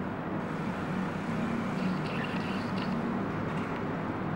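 Steady background noise, even and unbroken, with no distinct events.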